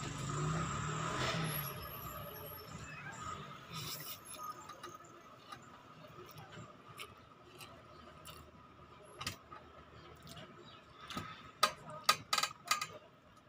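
Eating noodles with chopsticks: a noisy rush of breath or slurping in the first two seconds, then quiet chewing with the odd click, and a quick run of clicks near the end as the chopsticks tap against the plate.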